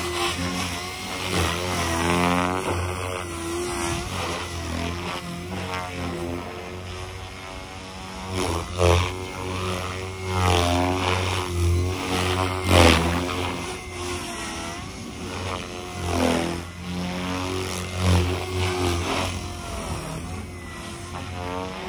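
Align TB40 electric RC helicopter in flight, its main rotor at about 2750 rpm giving a steady low blade buzz with a motor whine on top. The pitch and loudness swell and fall as it moves, with louder surges of blade noise about 9, 13 and 18 seconds in.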